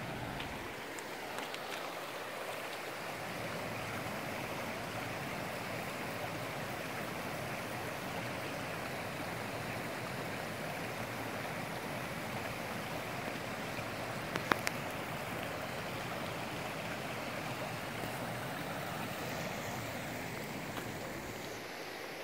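Shallow mountain stream running over rock slabs, a steady even rush of water. A quick cluster of three sharp clicks about two-thirds of the way through.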